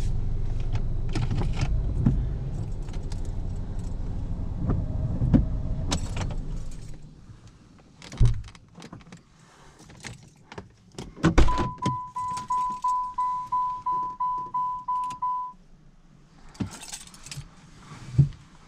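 Car engine running, then shut off about seven seconds in. Keys rattle and clicks and knocks follow. A car's warning chime then dings about three times a second for about four seconds.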